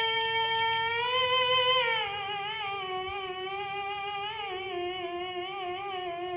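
A Qur'an reciter's voice sustaining one long melodic note in tilawah style. It holds steady for the first two seconds, then steps down slightly and wavers in an ornamented trill.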